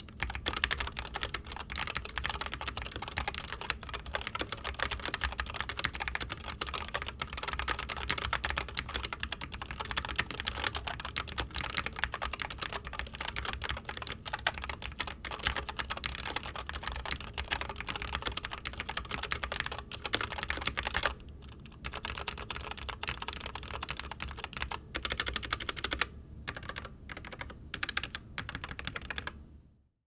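Continuous fast typing on a SteelSeries Apex Pro keyboard with linear OmniPoint analog switches: a dense stream of key presses, with a brief pause about two-thirds through and a few short gaps near the end.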